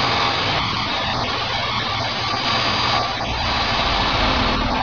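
Five-axis CNC machining center milling a metal car-lamp mold: a steady hiss of cutting noise with a thin high tone and a low hum underneath.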